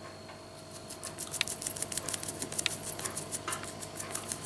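Toy poodle puppy playing with a plush toy on a tiled floor: quick, irregular light clicks and scratches, several a second, starting about half a second in.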